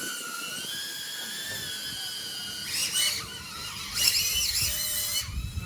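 DJI Avata FPV drone's ducted propellers whining, the pitch wavering as the throttle changes, louder and shifting around three and four seconds in.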